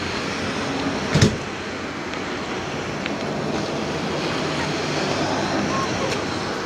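Cars and a pickup truck driving past on the street, a steady rush of road noise, with one short thump about a second in.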